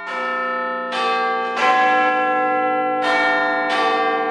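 Bells chiming a slow tune: single struck notes about a second apart, each ringing on and overlapping the next.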